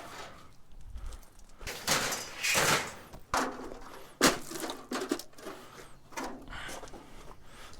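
Scrap metal being worked apart by hand with tools: a series of scrapes, rattles and knocks, with one sharp knock about four seconds in.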